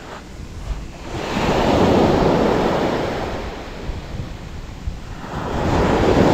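Surf washing up a sandy beach, two waves swelling in and falling away, the first about a second in and the second near the end, with wind noise on the microphone.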